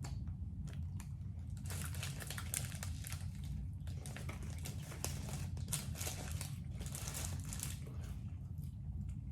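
Sandwich wrapper crinkling and rustling in irregular bursts while a chicken sandwich is handled and unwrapped, over a steady low hum.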